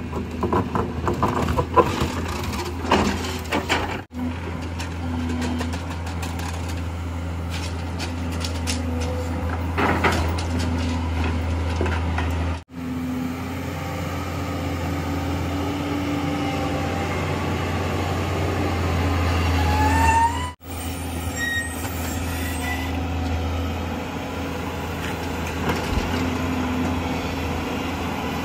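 JCB JS215 tracked excavator's diesel engine running steadily under load while the hydraulics work the boom and bucket. In the first few seconds there are knocks and scraping as the bucket works against soil and broken concrete, and a brief rising whine comes about two-thirds through.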